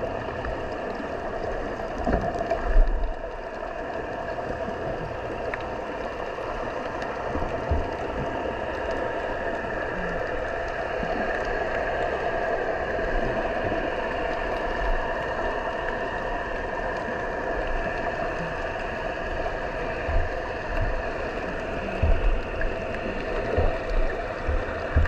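Underwater ambience heard through a GoPro Hero10's waterproof housing on the seabed: a steady rushing hiss of moving water, with a few low thumps about two seconds in and again near the end.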